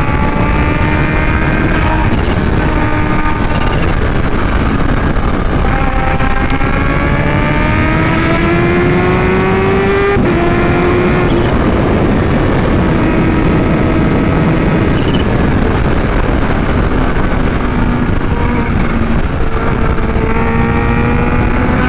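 Kawasaki Ninja H2's supercharged inline-four with a Vandemon exhaust, ridden at speed over a steady rush of wind noise. The engine pitch climbs under acceleration, drops sharply about ten seconds in at a gear change, and climbs again near the end.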